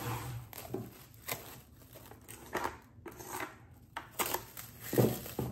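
Plastic cling film being pulled off its roll, torn and stretched over a mixing bowl: irregular crinkling and rustling, with a louder clack near the end.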